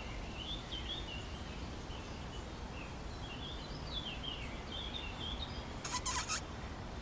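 Birds chirping and warbling faintly over a steady background hiss, with a short crackling rustle near the end.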